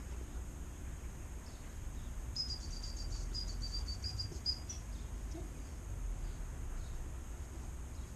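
Dog training whistle blown as a fast run of short, high-pitched pips for about two seconds: the recall signal calling the puppy in.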